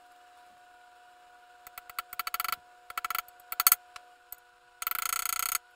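Hammer tapping a new brake-shaft seal into a Wheel Horse 8-speed transaxle case: short runs of quick, light taps, the loudest a little past halfway, and a denser half-second stretch near the end.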